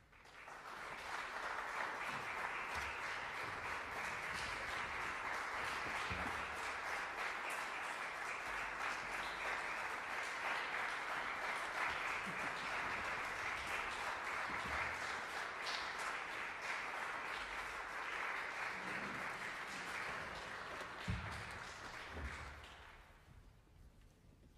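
Audience applauding, breaking out suddenly out of silence, holding steady for about twenty seconds, then dying away. A single knock is heard near the end.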